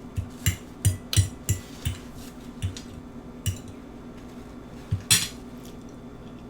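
Cutlery clicking and tapping against a plate during eating. A quick run of taps comes in the first two seconds, then a few spaced ones, the loudest about five seconds in.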